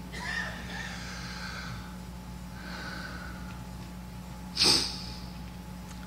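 A man breathing close to a lectern microphone during a pause in his speech, with a short sharp sniff about four and a half seconds in, over a steady low hum from the sound system.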